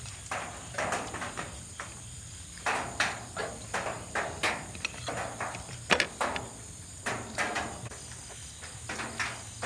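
A steady chorus of crickets, with close-up eating sounds over it: irregular chewing and mouth noises and the odd scrape or clink of a spoon on a dish. The loudest is a sharp click about six seconds in.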